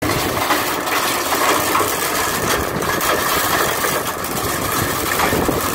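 Hammer mill (16 by 12 inch) running, a loud, steady, dense mechanical noise.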